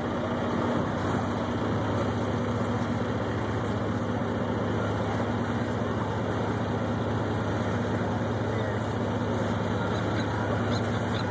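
A boat's engine running at a steady low hum, over a constant rush of water.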